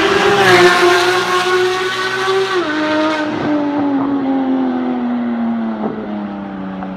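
Porsche 991 GT3 flat-six at high revs through a Fi catless downpipe and valvetronic exhaust, very loud as the car passes close, then pulling away. The pitch drops suddenly about two and a half seconds in as it shifts up, then sinks gradually as the car fades into the distance.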